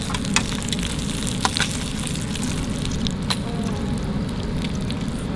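Bacon sizzling in a frying pan over a campfire: a steady frying hiss with a few sharp pops.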